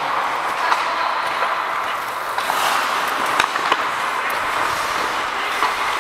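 Ice hockey skate blades scraping and gliding on the ice in a steady hiss, with a few sharp clacks of sticks and puck.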